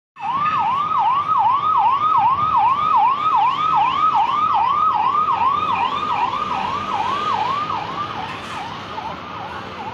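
Electronic siren sounding a fast, evenly repeating wail, about three pitch sweeps a second, that fades away over the last few seconds.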